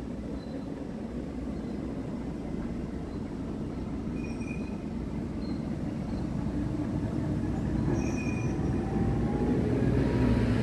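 Truck diesel engine idling, heard from inside the cab as a steady low rumble that grows slowly louder toward the end.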